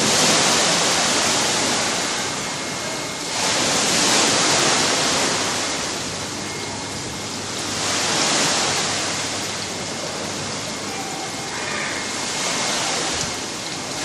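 Sea waves washing in, a steady rush of water that swells and eases about every four seconds.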